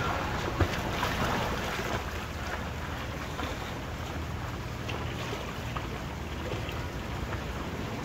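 Swimming-pool water lapping and splashing against the pool edge right next to the microphone, churned by a swimmer doing laps, with wind rumbling on the microphone.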